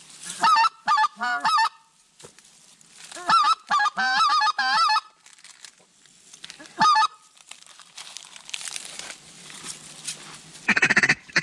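Goose calling: quick clusters of short, high honks in three bursts, the middle one the longest. A denser, raspy run of calling starts just before the end.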